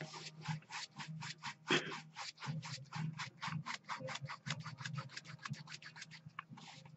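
Paintbrush loaded with oil paint scrubbed rapidly back and forth across the wet painting surface, an even dry scratching of about six strokes a second: the straight horizontal strokes used to paint water. A faint steady low hum lies underneath.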